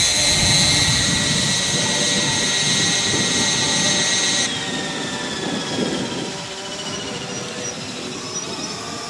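Large radio-controlled Lama helicopter model's turbine engine whining steadily while the main rotor turns. About four and a half seconds in, the whine cuts off and falls away as the engine is shut down, leaving the rotor winding down with a lower rumble.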